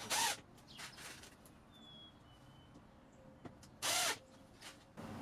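A power drill runs in two short bursts, one right at the start and one about four seconds in.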